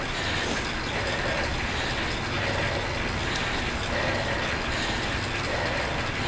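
Bicycle on an indoor trainer whirring steadily as the rider pedals at about 90–100 RPM under moderate load.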